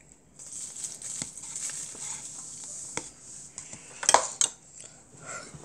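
A metal spoon scraping cup-rice seaweed soup out of a paper cup into a ceramic bowl, a rasping hiss for a couple of seconds with small knocks. Then the spoon clinks sharply against the bowl twice, about four seconds in.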